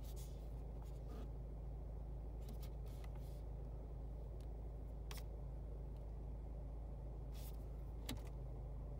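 Steady low hum inside a car cabin, with a handful of light clicks and taps from fingers on the infotainment touchscreen scattered through.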